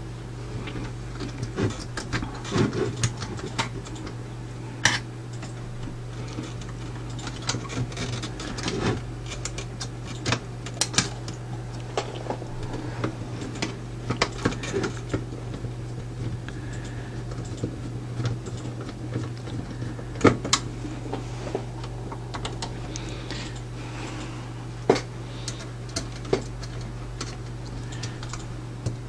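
Screwdriver and fingers working the power-switch mounting screws on the metal chassis of a Radiotekhnika U-101 stereo amplifier: irregular clicks, small metallic taps and scrapes as the switch bracket is loosened and shifted in its slotted holes. A steady low hum runs underneath.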